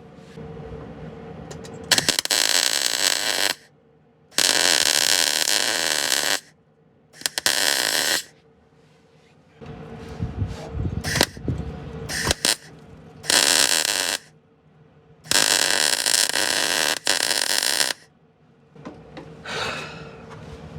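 Welder laying short bursts of weld on the car's wheel-arch panel: five loud, crackling runs of one to three seconds each, with pauses between and a few brief crackles partway through. The welds are going badly, leaving a big fat blob, which the welder blames on poor-quality replacement panel metal.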